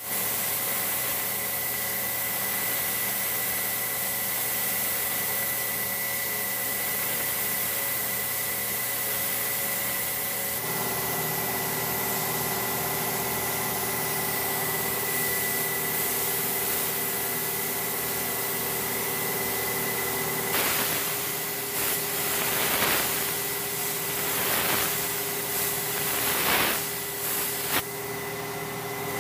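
Compressed-air paint spray gun hissing steadily as paint is sprayed, over a steady machine hum. About twenty seconds in, the hiss breaks into a string of short bursts, as the trigger is pulled and released.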